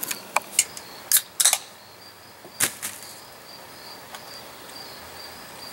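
A few sharp clicks and knocks in the first three seconds, then a cricket chirping steadily: a thin, high, pulsing trill.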